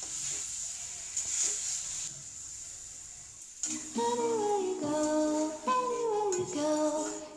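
Egg curry frying in a steel kadhai, a soft, steady sizzle. About three and a half seconds in, background music with singing starts and is louder than the sizzle.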